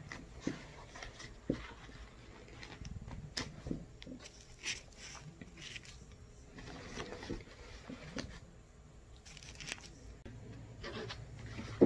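Light handling sounds of pins being pulled out of a stitched fabric bag held in an embroidery hoop: scattered small clicks and brief rustles at irregular intervals.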